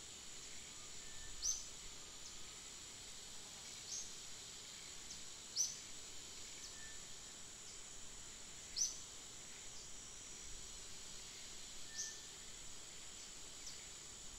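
Forest ambience: a steady, high-pitched insect drone, with short, sharp high chirps every couple of seconds.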